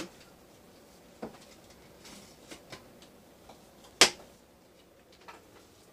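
Quiet handling of a plastic NutriBullet blender cup with a few light clicks, then one sharp knock about four seconds in as the cup is tipped and tapped over a plastic mixing bowl to empty out the ground pork rinds.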